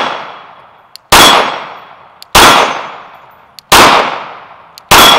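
Glock 19 Gen 5 9mm pistol firing four evenly paced shots about a second and a quarter apart, each a sharp crack followed by an echo dying away. The echo of a shot fired just before rings at the start.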